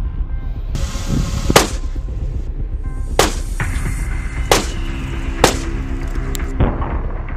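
Single gunshots, about five, spaced roughly a second apart, over background music with a heavy low beat.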